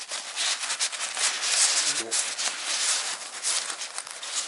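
Thin nylon fabric of a Patagonia Ultralight Black Hole Tote Pack rustling and crinkling as it is pulled out of its own stuff pocket and unfolded by hand, with quick irregular crackles throughout.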